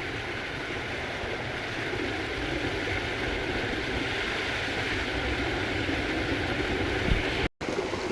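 Waterfall's falling water making a steady rushing noise, which cuts out for an instant near the end.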